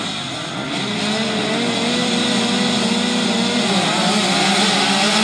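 A grid of motocross bike engines revving together at the start line, one held steady at high revs through the middle, then several engines changing pitch about four seconds in.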